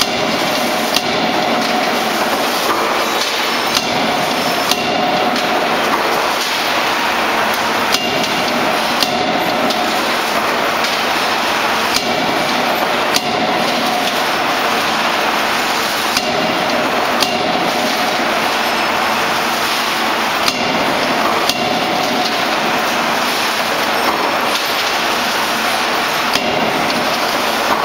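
CNC hydraulic die-forging hammer (16 kJ) striking hot steel pliers blanks in closed dies: sharp metallic blows every few seconds, often in pairs about a second apart. Steady loud forge-shop machinery noise runs underneath.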